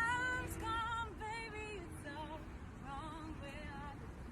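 A solo voice singing a melodic run, wavering and sliding quickly between notes. It is loudest in the first second or so, then carries on more softly.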